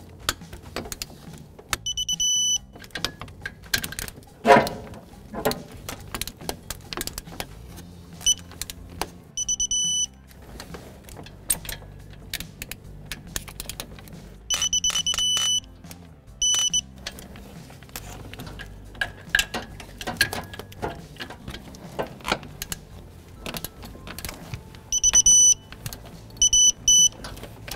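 Digital torque wrench beeping in short runs of high tones as each tensioner bracket bolt reaches its 32 foot-pound setting, with a wrench ratchet clicking in between. A single loud metal knock about four and a half seconds in.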